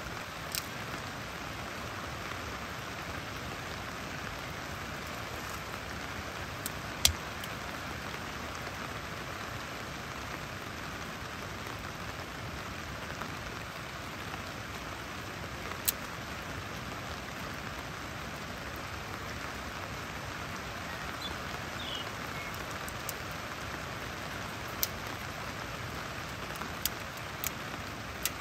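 Steady hiss of rain, with occasional sharp snaps of dry twigs and kindling, the loudest about seven seconds in and several close together near the end.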